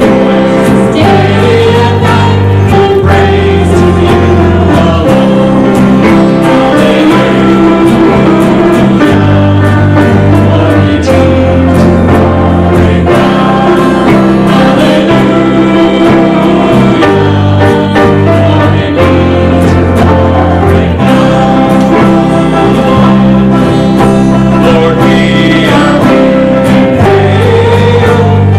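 Church congregation singing a worship hymn together with instrumental accompaniment, the bass notes changing every couple of seconds.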